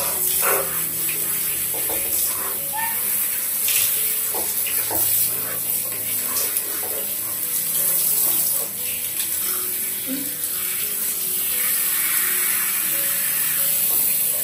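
Water running steadily from a handheld shower head, splashing over a baby monkey as it is rinsed.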